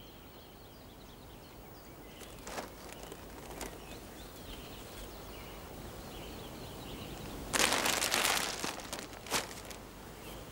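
Plastic bags rustling, and a handful of dry breadcrumb or biscuit meal dropped into a plastic groundbait bowl, the loudest rustle lasting about a second near the end. Faint birdsong throughout.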